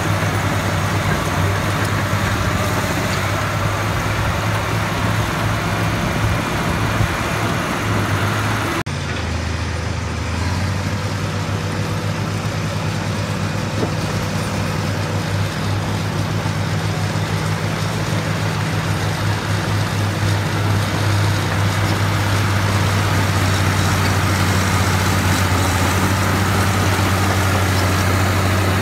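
Diesel engine of a Caterpillar D6H crawler running steadily with a deep, continuous hum. The sound changes abruptly about nine seconds in, then the engine carries on.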